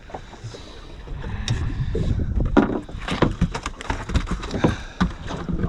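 Irregular knocks and clunks on a small fishing boat over a low rumble of hull and water noise.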